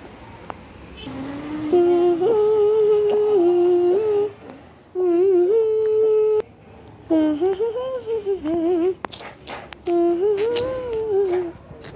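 A voice humming a simple tune in four short phrases of held notes that step up and down in pitch. There are a few clicks between the third and fourth phrases.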